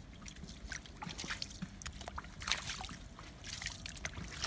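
Footsteps in wet, melting slush: a few wet, crunchy steps with small crackles between them.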